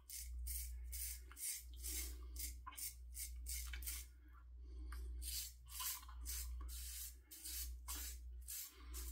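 Double-edge safety razor with a 3D-printed closed-comb head scraping through two days' stubble in short strokes, about two or three a second, with a brief pause about four seconds in.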